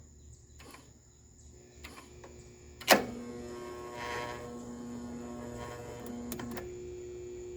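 Lawn mower electric starter motor cut in with a sharp click about three seconds in, then a steady whir as it spins freely without turning the engine over: the starter drive is not engaging the flywheel.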